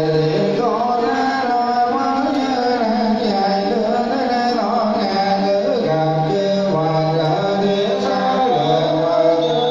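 Buddhist monks and lay followers chanting a sutra together in Vietnamese: a slow, melodic group chant of held notes that slide from one pitch to the next.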